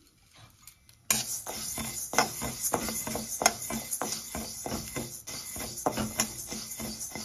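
Metal spatula scraping and stirring dry split moong dal in a metal kadai, the lentils rattling against the pan as they dry-roast. Repeated scrapes start about a second in.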